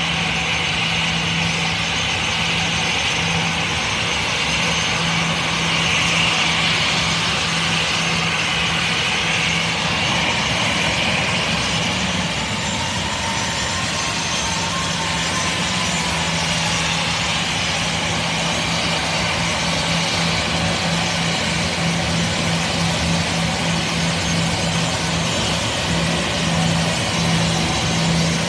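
Four jet engines of an Airbus A340 airliner running at low taxi power as it rolls slowly past: a loud, steady whine and rush with a constant low hum underneath.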